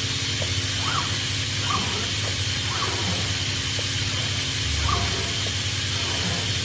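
PCB odd-form insertion machine at work: a steady hiss and hum of machinery, with short rising-and-falling whines from its motor-driven insertion heads now and then.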